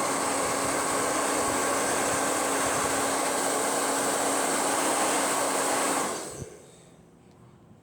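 Hair dryer running steadily on its high setting, a loud rush of air with a steady motor hum, switched off about six seconds in and winding down to quiet.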